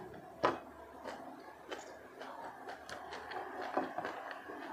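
Quiet eating sounds: fingers gathering rice from a plate, with a few light clicks, the sharpest about half a second in.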